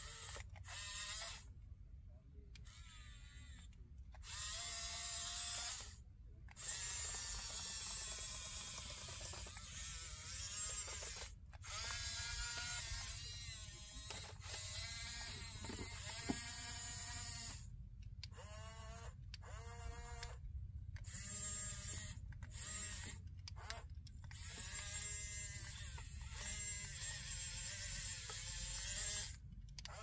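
Small electric motors and gearboxes of a Huina 1554 radio-controlled toy bulldozer whining in repeated short runs, the pitch rising and falling as the tracks and blade are driven from the remote, with brief pauses between runs.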